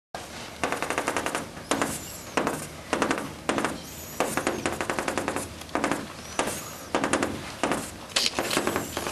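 Chalk tapping rapidly on a blackboard, dotting out the lines of a grid of boxes: a dozen or so short runs of quick clicks, each lasting under a second.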